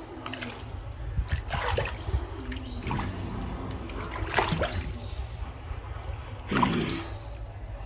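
Water splashing in a small tank as a hand slaps and stirs the surface, in several separate splashes.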